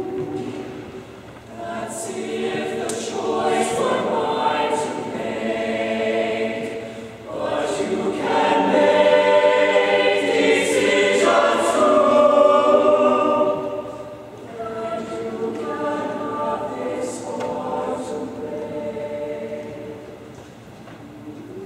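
High school choir singing a cappella in slow, sustained chords, with crisp 's' consonants; the sound swells to its loudest about halfway through, then eases back and softens near the end.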